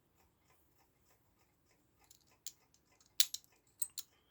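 Small sharp metal clicks and taps as a plate is fitted onto an Elco electric clock's movement, a few of them in the second half, the loudest a little past three seconds in.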